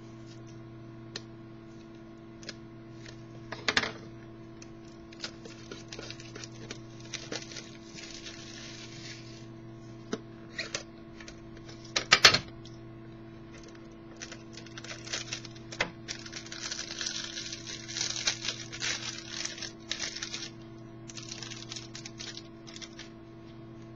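A football trading card box and its packaging being opened and handled: scattered clicks and taps with stretches of crinkling and rustling, and two sharper knocks, about 4 and 12 seconds in. A steady electrical hum runs underneath.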